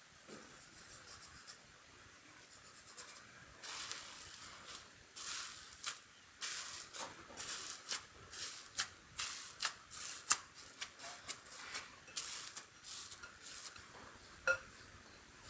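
Irregular hand-handling sounds: light rustling and scraping in quick, uneven bursts with sharp clicks, and one short ringing tap about a second before the end.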